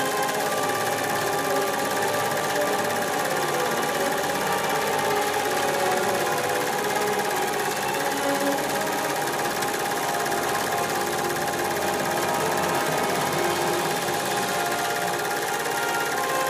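Film projector running: a steady, rapid mechanical clatter with a whirring hum that keeps an even level throughout.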